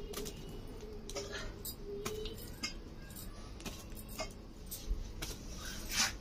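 Glowing embers crackling and ticking irregularly around litti dough balls roasting in the fire, with a louder crackle near the end.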